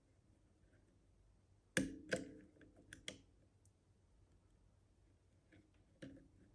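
A few small sharp clicks from lock-picking tools working inside an Easi-T lever lock. About four clicks come close together around two to three seconds in, and one more near the end.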